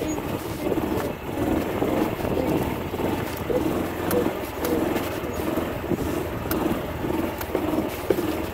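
Golf cart driving along: a steady running noise with a few short clicks.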